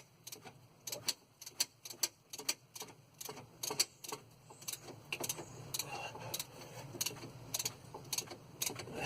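Raindrops tapping irregularly, several sharp ticks a second.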